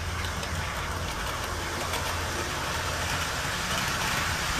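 Bachmann OO-gauge Class 170 model train running on the layout track: a steady whirring rumble of its motor and wheels on the rails, over a constant low hum.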